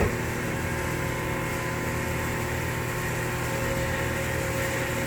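Steady hum of workplace machinery in a sheet metal shop: a constant drone with several steady tones running through it.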